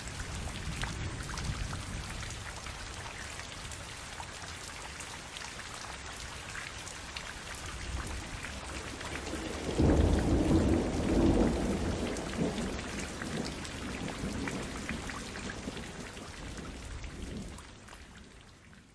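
Steady rain with many distinct drops striking a surface. About halfway through, a clap of thunder comes in suddenly and rumbles low for several seconds before dying away, and the sound fades out near the end.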